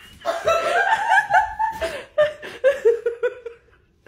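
People laughing: high, gliding laughter at first, then a quick run of short ha-ha pulses falling in pitch that dies away shortly before the end.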